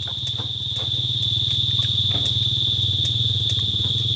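Steady low hum of a running motor, with a continuous high-pitched insect drone above it and a few faint ticks.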